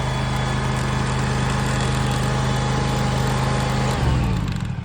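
Scag Tiger mower engine running steadily after being started by jumpering past the switch with a wire, then shut off about four seconds in and running down to a stop.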